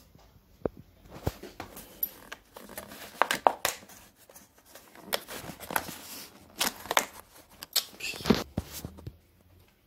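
Clear plastic lid of a deli food container being pried and lifted at its edge: irregular crackling and sharp plastic clicks and snaps.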